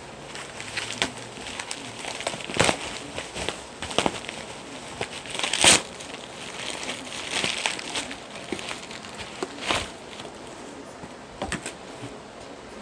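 Packaging being handled and unwrapped: irregular crinkling and rustling, loudest about six seconds in.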